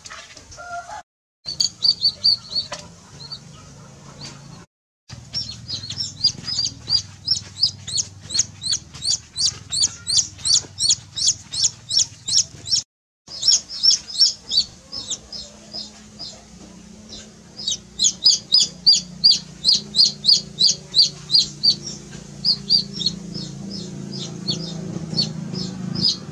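A baby chick peeping loudly and rapidly, about three or four high cheeps a second, in long runs broken by a few brief gaps, typical of a chick's distress call. A low steady hum lies underneath.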